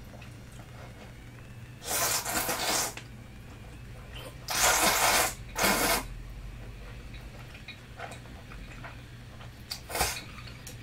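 A person eating hot udon and fish cake close to the microphone: four airy mouth sounds, each about a second or shorter, over a low steady hum.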